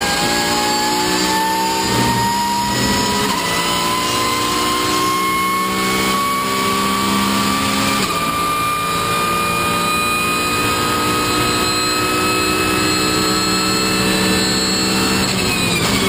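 Porsche 911 GT3 Cup's 3.8-litre flat-six heard from the cockpit at full throttle, with a whine rising steadily in pitch as the car gathers speed down a long straight. Near the end the pitch drops sharply as the driver comes off the throttle or shifts.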